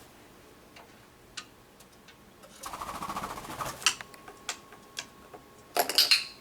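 Senegal parrot fetching during a flighted retrieve: light clicks and taps of a small object being handled, a fluttering stretch of wingbeats midway, and a louder clatter near the end.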